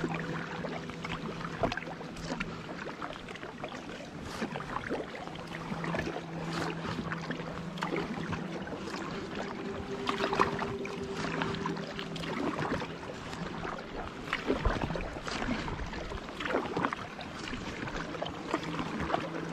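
Packraft paddle strokes on calm water: the blades of a double-bladed paddle dip, splash and drip every second or so. Underneath, a low steady hum comes and goes.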